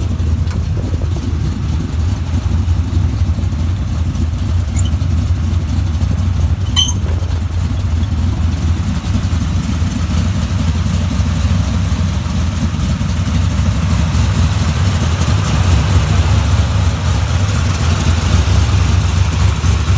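Freshly built small-block V8 in a 1979 Camaro Z28 idling steadily. A single short click sounds about seven seconds in.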